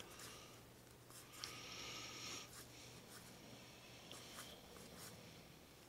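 Faint sliding and light clicks of Pokémon trading cards being flipped through by hand, with a soft hiss lasting about a second, about a second and a half in.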